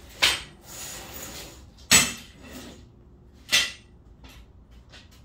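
Three sharp knocks of hard objects being handled and set down, with a rustle between the first two; the loudest knock is about two seconds in.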